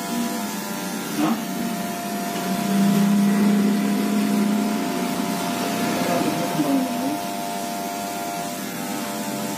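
Electric hair clipper buzzing steadily as it cuts hair along the side of the head. It gets louder for about two seconds, a couple of seconds in.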